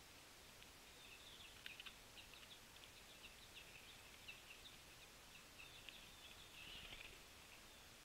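Faint calls of small songbirds: many short, high chirps scattered throughout, thickening into a quick flurry about seven seconds in, over a steady faint outdoor hiss.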